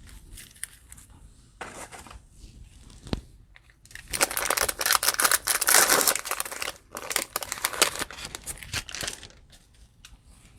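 Cellophane wrapper of a trading card cello pack being torn open and crinkled, with a long stretch of dense crackling in the middle and a few short tearing sounds and light ticks around it.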